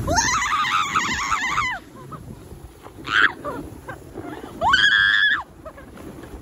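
High-pitched squeals of excitement from people on a towed snow sled: a long, wavering one at the start, a short cry about three seconds in, and another squeal around five seconds in, over a steady low noise of the ride through snow.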